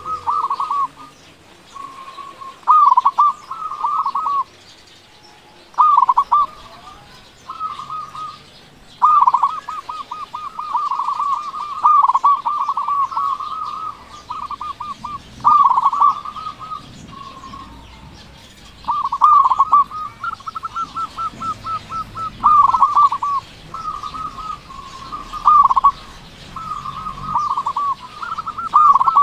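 Zebra dove (perkutut) singing its cooing song: phrases of quick, short coos, repeated every few seconds, some running on for several seconds.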